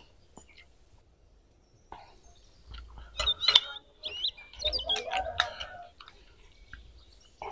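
Birds chirping and a chicken clucking, mixed with a few sharp clinks of spoons on plates; the first couple of seconds are quiet.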